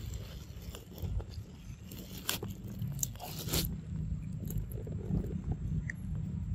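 Young macaque biting and chewing fruit from a hand, with a few sharp crunches over a steady low rumble.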